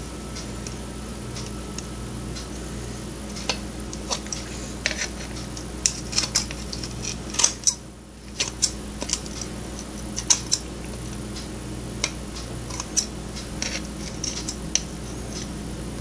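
Scissors snipping sparkly decorative tape off a light switch cover plate: irregular sharp snips and clicks starting a few seconds in, over a steady low hum.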